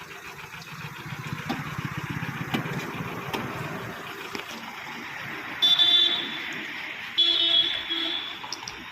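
A rapid rhythmic buzz for the first few seconds, then a vehicle horn honking twice, each blast about a second long.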